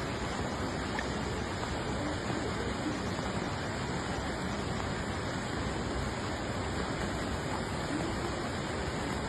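Heavy rain, a steady rushing noise with no crash or impact in it.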